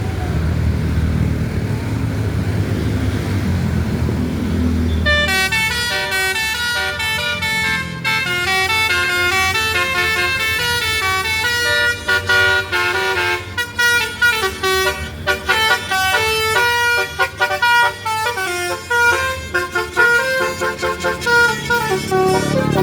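Bus engine running for about five seconds, then a basuri telolet horn, a multi-note air horn, plays a quick melody of pitched toots that grows choppier, with short breaks, from about twelve seconds in.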